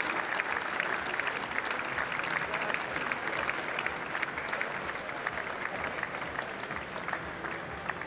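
Audience applauding: dense, steady clapping from many hands that slowly dies down toward the end.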